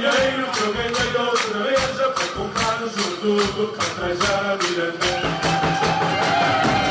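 Live Mirandese folk band: voices singing a melody over a steady beat of bass-drum strokes and shaken percussion, several strokes a second. Near the end a long note is held.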